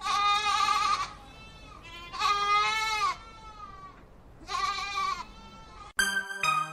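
A goat bleating three times, each call about a second long with a wavering pitch. About six seconds in, electronic music cuts in suddenly.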